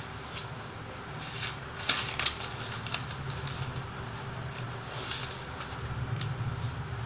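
Steady low mechanical hum, with brief rustling and soft knocks about two seconds in and again around five seconds.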